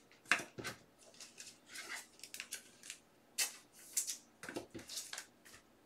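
Faint, irregular clicks and short rustles of trading cards and their box packaging being handled on a desk.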